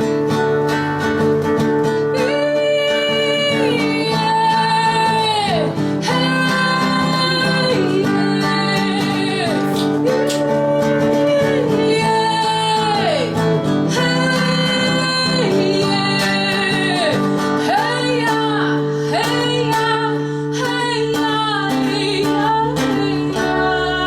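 Instrumental break in a Brazilian acoustic song: guitar chords with a lead melody entering about two seconds in, sliding between held notes.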